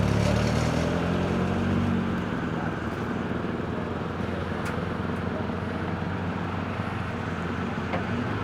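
Ford Escort Mk2 rally car engine running hard, its sound fading over the first few seconds as the car moves away.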